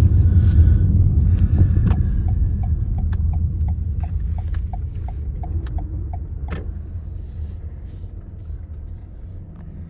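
Car cabin road noise: a low engine and tyre rumble that fades as the car slows. A light, even ticking of the turn signal, about three ticks a second, runs through the middle.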